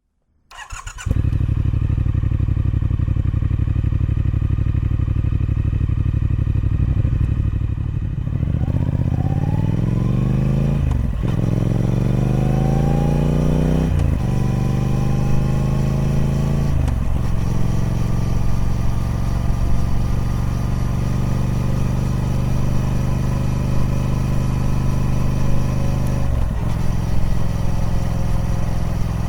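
Triumph Speed Twin 1200's parallel-twin engine on its stock exhaust, idling steadily at first. About eight seconds in it pulls away, the pitch climbing and dropping sharply three times as it shifts up through the gears, then it settles to a steady cruise with one more brief dip near the end.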